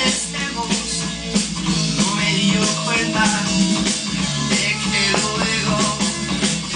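Rock music with singing and guitar.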